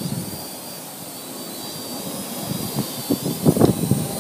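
Parrot AR.Drone 2.0 quadcopter flying, its motors and propellers giving a thin high whine that wavers in pitch as it holds itself steady. Wind buffets the microphone in gusts, loudest about three and a half seconds in.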